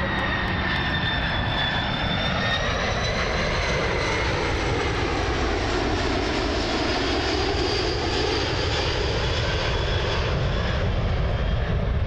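DC-10 air tanker's three jet engines running loud and steady in a low fly-past, with a high whine that sinks slightly in pitch over the first few seconds as the jet passes.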